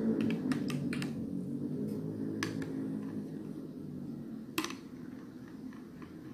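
A long spoon clinking against a tall glass while stirring a thick watermelon smoothie. There is a quick run of taps in the first second, another about two and a half seconds in, and the sharpest tap about four and a half seconds in. Underneath runs a low hum that slowly fades.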